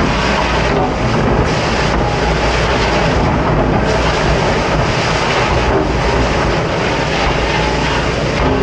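Pre-rinse spray hose blasting water onto stainless steel hotel pans, a loud hiss and splatter that drops off briefly several times as the spray is moved, over a steady low machine roar.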